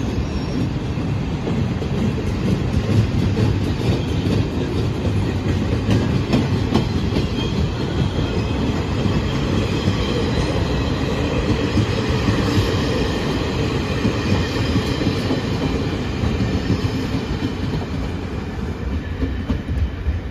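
Chu-Kuang express passenger coaches rolling past on the track beside the platform: a steady noise of steel wheels on rail, easing a little near the end as the last coach goes by.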